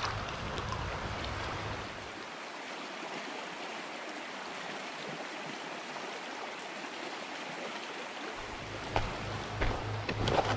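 Shallow rocky stream water running and rippling over stones, a steady rushing that holds level throughout, with a few small clicks or splashes near the end.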